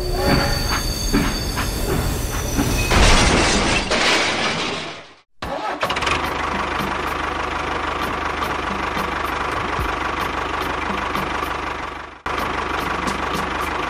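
A tractor engine running steadily. It drops out abruptly about five seconds in, then runs on evenly.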